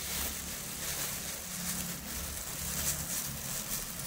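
Thin clear plastic food gloves crinkling as gloved hands rub and flex, over a steady low hum.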